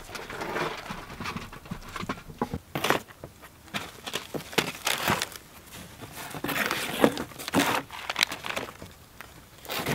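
Plastic food wrapping crinkling and rustling in irregular bursts as it is handled, with a few sharp light knocks.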